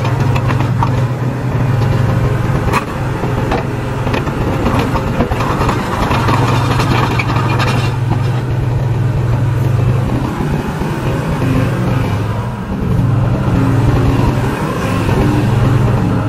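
SANY SY60C mini excavator's diesel engine running at working revs while it drives its hydraulics, a steady low drone that eases off twice for a few seconds as the load changes.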